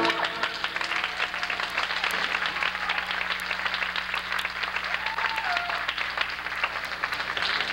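Audience applauding, a dense patter of many hands clapping, as the music ends.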